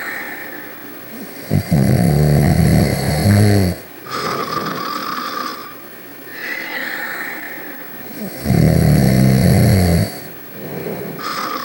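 Snoring: two long, loud snores about six and a half seconds apart, with softer, hissing breaths between them.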